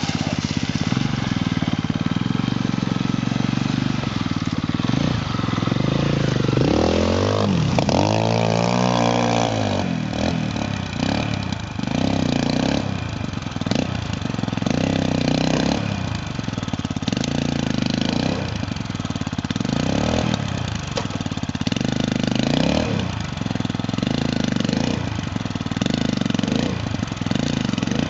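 Quad bike engine running and being revved while it is ridden, with a big rise and fall in pitch about seven to ten seconds in. After that come short revs roughly every couple of seconds.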